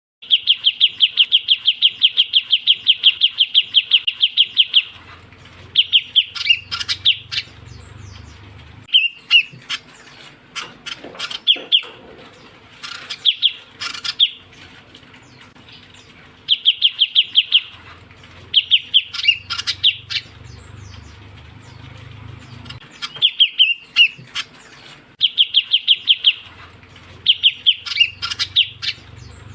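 Ciu kunyit bird call used as a trapping lure: fast trills of evenly repeated high notes, each trill lasting one to four seconds and coming back again and again, with shorter chirps in between.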